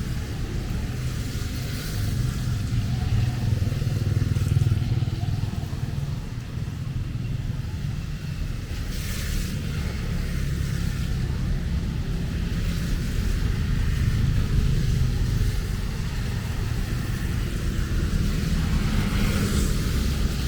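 Motorbike and car traffic passing on a wet road, with a steady low engine rumble and light rain in the background. Tyre hiss swells briefly as vehicles go by, about nine seconds in and again near the end.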